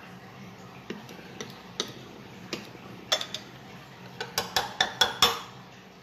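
Metal icing spatula clicking and tapping against kitchen utensils: a few scattered clicks, then a quick run of about six louder taps near the end.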